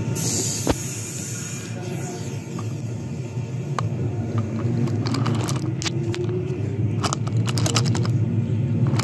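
Wooden toy subway train pushed by hand along wooden track: a steady rolling rumble of the wheels, with a sharp click about a second in and a run of clicks and knocks in the second half as the cars are handled.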